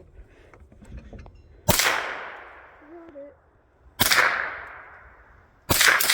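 .22 rifle shots: three sharp cracks about two seconds apart, each trailing off in a long echo. The third is followed by a quick run of further sharp cracks at the very end.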